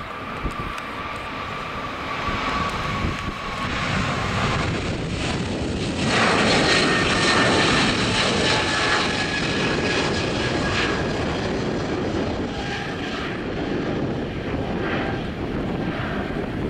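Boeing 777-200ER's twin turbofan engines at takeoff thrust as the airliner lifts off and climbs: a steady jet roar with a faint high whine. It grows suddenly louder about six seconds in, then eases off slightly.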